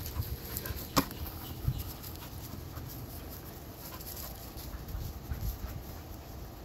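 Small dogs playing with a ball, panting and mouthing at it, with one sharp knock about a second in.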